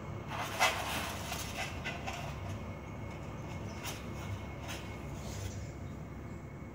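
Otter vocalising in a wire cage: one short, noisy, hissing burst about half a second in, followed by a few faint short clicks.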